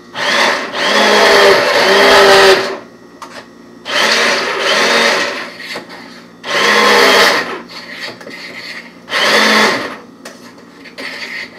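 Handheld Chefman immersion blender run in four separate bursts, each a loud motor whine, the first and longest lasting about two and a half seconds. It is puréeing simmered strawberries into syrup in a metal saucepan.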